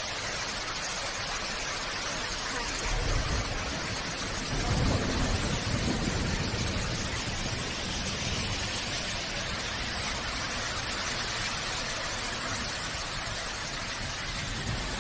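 Torrential rain pouring onto a flooded street and trees, a steady dense hiss, with two low rumbles about three and five seconds in.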